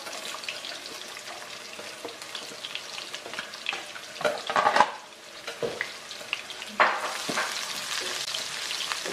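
Sliced shallots and garlic sizzling in hot oil in a pan, with a spatula scraping and knocking against the pan now and then. A sharp knock about seven seconds in, after which the sizzle is louder.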